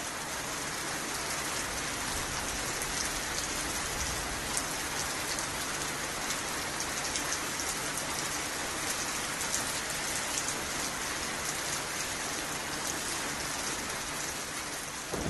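Steady rain, with the ticks of single drops over an even hiss. A low rumble of thunder sets in at the very end.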